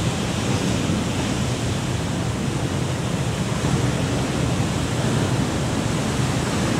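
Rough sea surf breaking on a rocky shore: a steady rush of noise with no distinct breaks.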